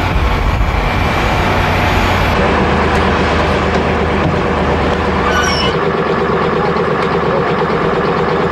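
Engine of a tracked armoured personnel carrier running steadily, loud and even. A brief high squeal sounds about five seconds in.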